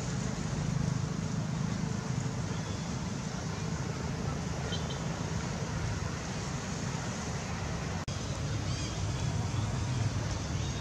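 Steady outdoor background noise, a low rumble under a wash of hiss, broken for an instant about eight seconds in.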